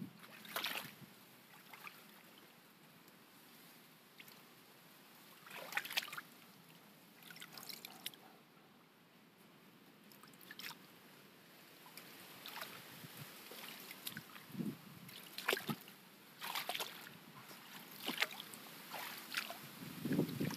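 Water splashing and trickling in small, scattered bursts, about a dozen faint splashes and drips spread irregularly.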